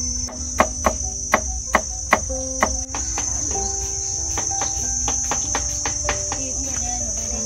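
A knife chopping jicama on a cutting board, a sharp chop about twice a second for the first three seconds, then fainter and more scattered. Crickets chirr steadily and high-pitched underneath.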